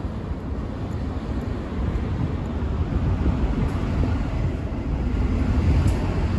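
Outdoor city street noise picked up by a handheld phone microphone while walking: a low, uneven rumble with a steady hiss above it, growing slightly louder over the first couple of seconds.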